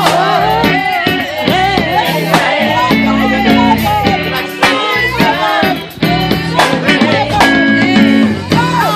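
A song with guitar and bass playing, with a melody line that slides and bends in pitch.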